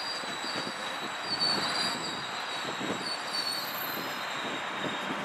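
GO Transit bilevel passenger coaches rolling past, their steel wheels making a steady rumble with irregular clatter on the rails. A thin, high-pitched wheel squeal comes and goes and fades out about four seconds in.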